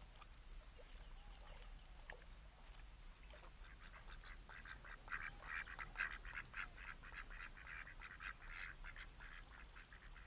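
A flock of ducks quacking, many short rapid calls that build from about three seconds in and are thickest in the middle.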